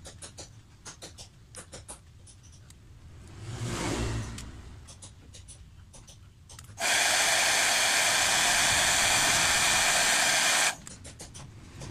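Hair dryer blowing for about four seconds, a loud steady hiss that starts abruptly about seven seconds in and cuts off just as suddenly; it is heating the phone screen to soften the adhesive between the LCD and the touchscreen. Faint light clicks come before it.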